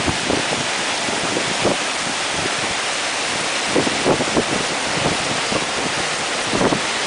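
Typhoon wind and heavy rain making a steady loud rushing hiss, with irregular gusts buffeting the microphone a few times.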